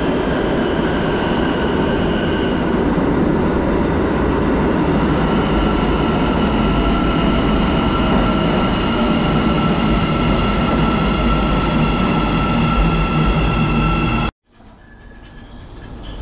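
Metro train running in its tunnel: a loud, steady rumble with high whining tones over it that drift slightly in pitch. It cuts off abruptly near the end, and a quieter rumble then rises.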